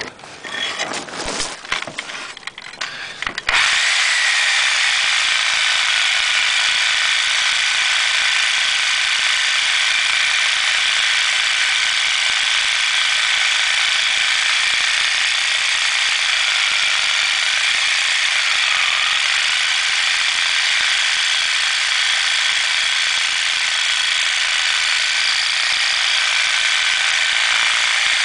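Reciprocating saw with a carbide grit blade cutting through 4-inch cast iron drain pipe: a steady, unbroken metal-on-metal rasp that starts about three and a half seconds in, after some knocking and clicking as the blade is set against the pipe.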